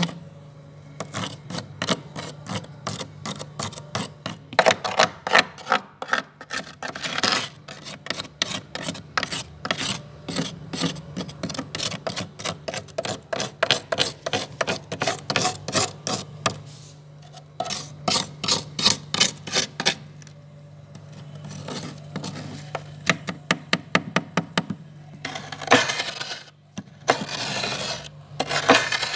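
A spoon scraping thick white frost off the inside walls of a freezer in quick, rasping strokes, in runs broken by short pauses.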